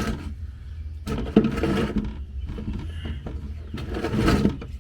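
Scattered clinks and knocks of hand tools working at the oil drain plug under a 1965 Chevy C-30, over a steady low hum.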